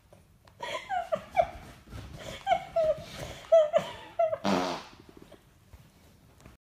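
A dog scrabbling at a leather sofa cushion: a run of about a dozen short high squeaks, each falling in pitch, then one longer, lower rasp about four and a half seconds in.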